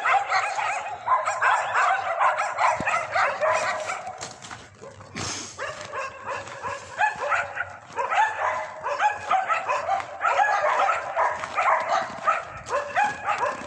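A pack of stray dogs barking, many short high barks overlapping, easing off briefly about four to six seconds in before picking up again.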